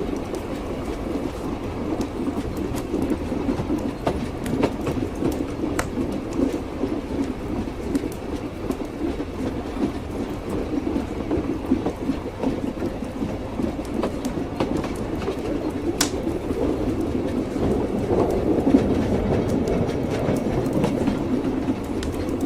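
Train running on rails: a steady low rumble with the clatter of wheels over the track and occasional sharp clicks.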